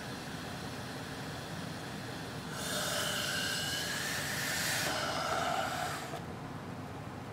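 Sucking a drink through a straw: a noisy slurp with a faint wavering whistle, about three and a half seconds long, starting a couple of seconds in, over a steady low hiss.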